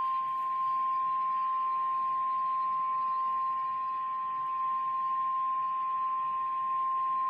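NOAA Weather Radio warning alarm tone: one steady, unbroken tone at 1050 Hz over faint radio hiss, sounded to announce that a weather warning is about to be read.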